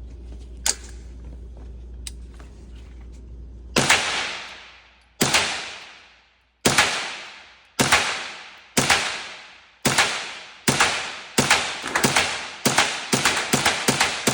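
A .22 LR firearm firing CCI Stinger rounds: about a dozen sharp single shots, each with a ringing echo tail. They start about four seconds in, roughly a second and a half apart, and come faster toward the end.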